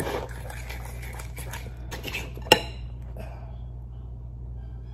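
A metal spoon stirring pancake batter in a bowl, scraping against the bowl, with one sharp clink of the spoon on the bowl about halfway through.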